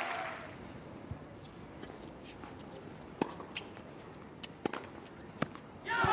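Tennis ball bouncing on a hard court and struck by racquets during a point: a string of short, sharp knocks at uneven intervals, the loudest about three seconds in, over a hushed crowd. Applause dies away at the start and breaks out again near the end.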